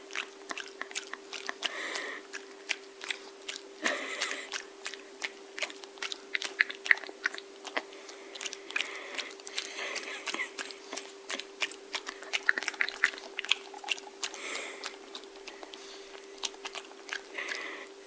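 A shih tzu chewing and crunching on a small piece of corn, with irregular sharp crunches and clicks of teeth.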